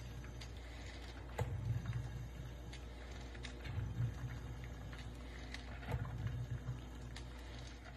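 Elite Gourmet EC140 electric stainless-steel coffee percolator percolating: low bubbling gurgles in bursts about every two seconds, with a few light clicks.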